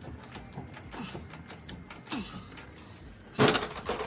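Scattered light metallic clicks of hand tools worked on a car's front wheel hub, then about three and a half seconds in a single loud metal strike of a hammer on the hub.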